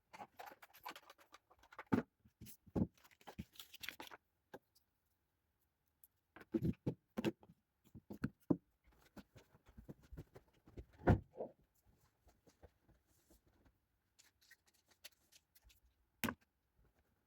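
Scattered knocks, clicks and rustling of household things being handled while a bedroom is tidied, with the loudest knock about eleven seconds in.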